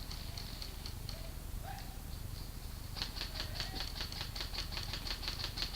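Airsoft gun firing a rapid string of shots, about eight sharp clicks a second, starting about three seconds in, after a few single clicks.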